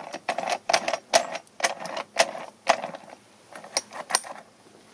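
Gears of a hand-built three-speed transaxle, made with pit-bike gears, turned and shifted by hand: a quick run of sharp metallic clicks for nearly three seconds, then two more clicks near the end.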